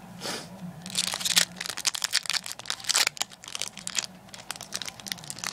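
A foil Pokémon booster pack being crinkled and torn open by hand: a quick, irregular run of sharp crackles and rips, busiest in the first three seconds or so.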